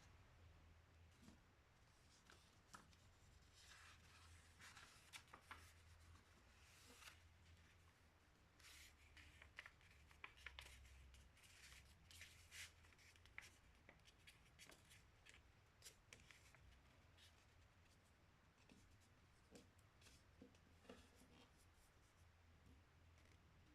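Faint rustling and scraping of a sheet of paper being folded and creased by hand, in short irregular strokes.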